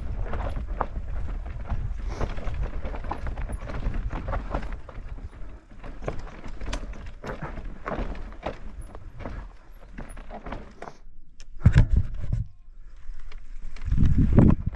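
Electric mountain bike clattering and knocking over rough, stony ground on a steep climb, over a steady low rumble. There are heavier thumps a little before the end and again at the very end.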